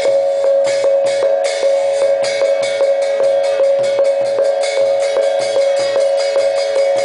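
Loud music with a quick, steady drumbeat over a held note.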